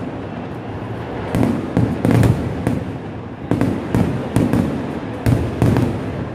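Fireworks display: shells bursting overhead in a rapid, irregular series of sharp bangs over a continuous crackling din.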